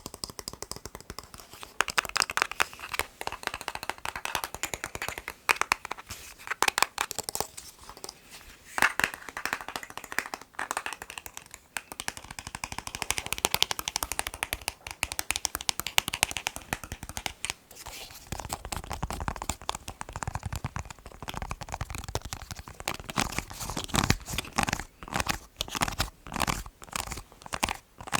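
Fingers tapping fast on a plastic TV remote: dense, uneven runs of sharp clicks with brief pauses between bursts. From about two-thirds of the way in, the taps gain a heavier, duller low end.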